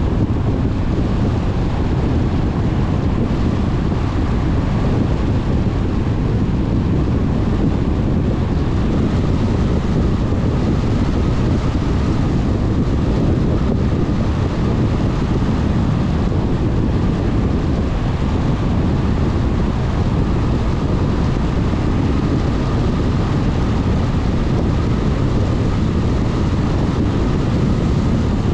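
Steady noise of a car driving at a constant pace: continuous road, engine and wind noise with no letup, mostly low-pitched, with a faint steady whine above it.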